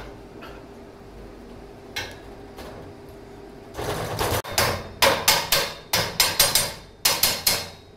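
Metal crossbar tube of a Pilates Cadillac frame being knocked by hand into its socket in the upright frame: one knock about two seconds in, then about ten sharp knocks in quick succession starting about four seconds in.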